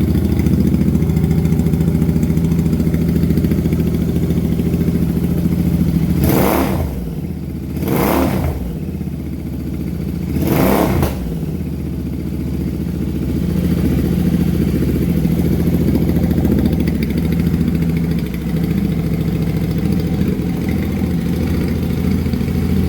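Royal Enfield Continental GT 650's 648 cc parallel-twin engine idling through EMGO cafe-style aftermarket silencers, with three short throttle blips between about six and eleven seconds in. It sounds definitely louder than on the stock silencers.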